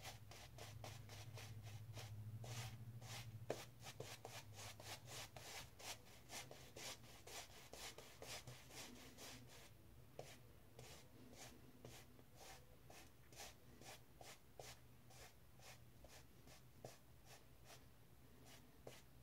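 Shaving brush swished over a lathered, stubbled face, a faint soft scratching in quick repeated strokes, a few a second.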